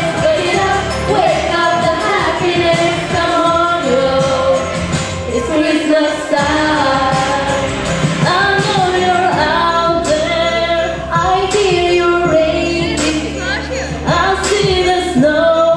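Young girls singing a pop Christmas song into microphones over a backing track with a steady beat.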